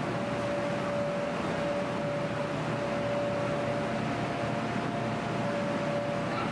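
Steady whir of the electric blower fans that keep inflatable bounce houses inflated: an even rush of air with a constant mid-pitched hum.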